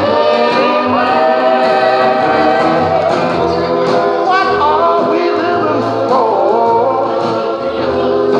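Loud music with a lead singer, playing steadily for dancing.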